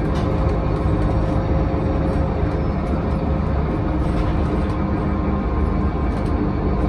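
City bus heard from inside the cabin while driving: a steady low rumble of engine and road noise, with a constant drivetrain whine and light rattles and clicks of the interior fittings.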